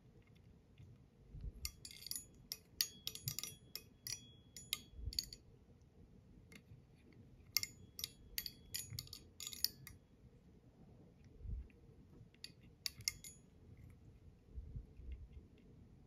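Faint, rapid clicking and crackling of fingers and copper wire as the wire rib is wound forward through the hackle of a fly in a tying vise. It comes in three short spells.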